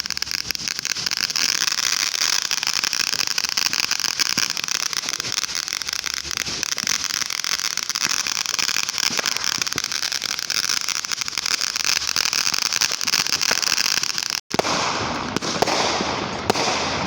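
Fireworks crackling continuously, a dense rapid stream of small pops over a steady hiss, cutting out for an instant near the end.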